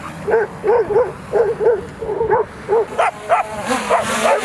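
Dogs barking rapidly and repeatedly, about three short barks a second, at a drone flying low over them.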